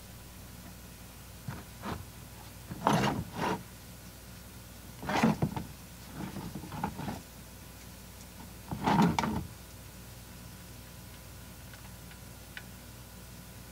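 Hand work at a car's oil drain plug and plastic drain pan: about five short scrapes and knocks, spread over the first ten seconds, as the drain plug is worked loose.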